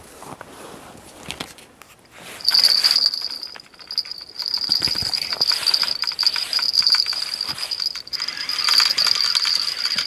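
Small bite-alarm bell on a bottom-line rod jingling without a break from about two and a half seconds in, shaken by a biting fish on the line.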